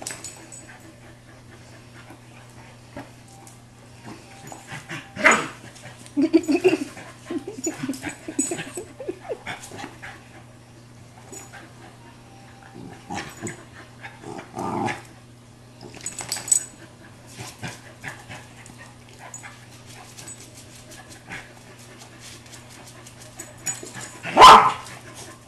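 Two dogs, a German Shepherd/Chow mix and an American Bulldog/Pointer mix, at play: scattered barks and grumbling vocal noises, with the loudest, a sharp bark, near the end.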